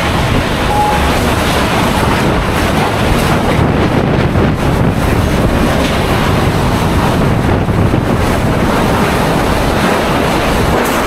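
Hurricane-force wind and driving rain, a loud, steady rush with heavy wind buffeting on the microphone.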